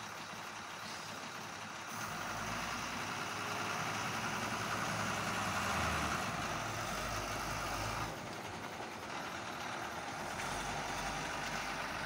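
Heavy truck engine running on a road-building site. It grows louder about two seconds in and drops back about eight seconds in.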